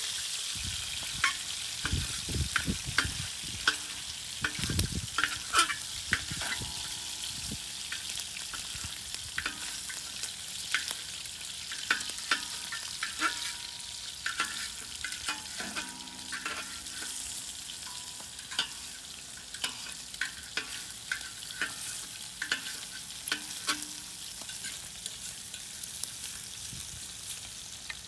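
Bacon sizzling and frying in a hot pan over a wood-fired rocket stove, with many sharp clicks and scrapes from stirring. There are a few low thumps in the first several seconds.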